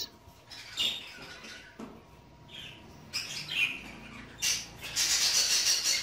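Budgerigar calling: a few short high chirps, then a burst of fast, scratchy warbling chatter near the end.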